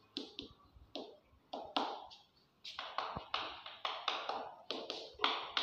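Chalk writing on a chalkboard: an irregular run of short taps and scratchy strokes, several a second, as letters are written, with a brief pause partway through.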